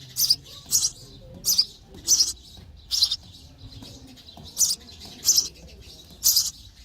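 Sparrow nestlings begging for food: short, high chirps repeated every half second to second, about eight in all, with a pause of about a second and a half in the middle.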